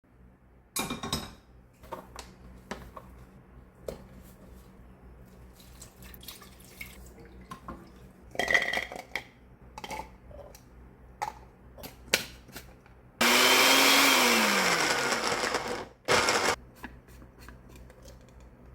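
Electric blender run in a burst of about two and a half seconds, its motor pitch dropping as the load bites, followed by a second short pulse. Before it come scattered clicks and knocks.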